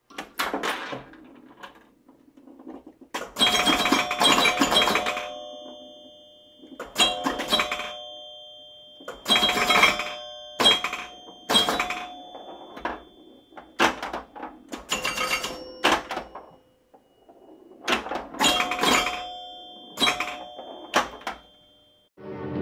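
Bell-like ringing tones struck in irregular clusters with sharp clattering onsets, about ten clusters a couple of seconds apart, each tone ringing on briefly before fading.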